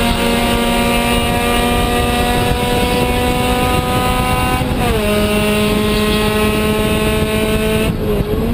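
Honda CRX Si race car's four-cylinder engine heard from inside the cockpit at full throttle, its pitch steady to slowly rising, then dropping quickly about five seconds in at an upshift before holding steady again.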